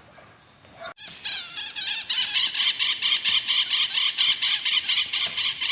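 A rapid, pulsing animal call, about six pulses a second. It starts about a second in, grows louder, then keeps up steadily until it cuts off abruptly.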